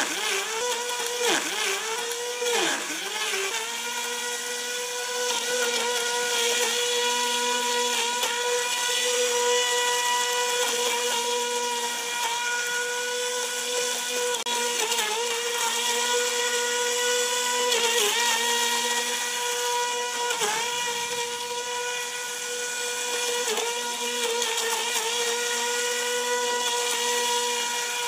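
An RC airboat's A2212 2200KV brushless airplane motor spinning an EP6035 air propeller at high throttle: a steady, high, motor-like whine with many overtones. Its pitch dips briefly several times as the throttle is eased and picked up again.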